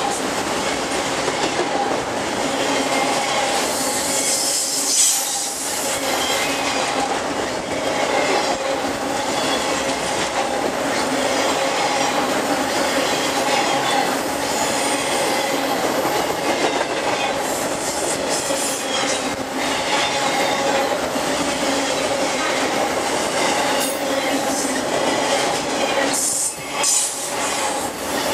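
A long freight train of autorack cars rolls past on a curving steel girder bridge: a steady rumble of wheels on rail with sustained squealing tones and scattered clicks as the wheels cross rail joints.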